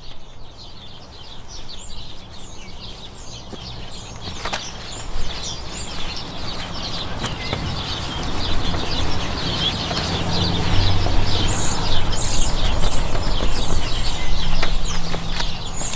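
Cloth rubbing over a plastic headlight lens, wiping off dried polish: a rough swishing that grows louder through the second half, with a low hum joining it. Small birds chirp throughout.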